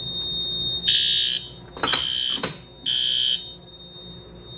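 Fire alarm horns on a Notifier NFS-320C demonstration system sounding the temporal-three evacuation pattern: three half-second blasts starting about a second in, then a pause, the sign of the panel in alarm. A steady high-pitched tone runs underneath, with a couple of sharp clicks near the middle.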